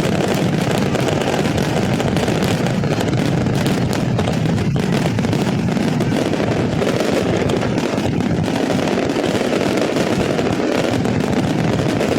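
Fireworks going off in a dense, continuous crackle of many small bursts, steady in loudness with no single big bang.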